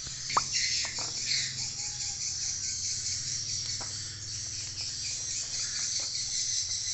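Steady high chirring of insects, with about four sharp clicks of scissors snipping chili stems, the loudest about half a second in.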